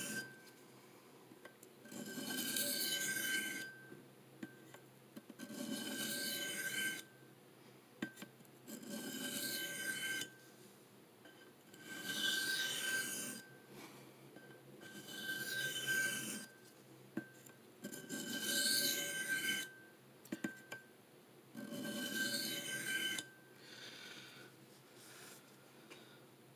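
Steel knife blade (CPM M4) stroked edge-on along a fine 600-grit DMT diamond plate wet with soapy water: seven gritty scrapes about three seconds apart, each lasting a second or so, and a fainter one near the end. The strokes sharpen the second side of the edge to meet the burr already raised on the other side.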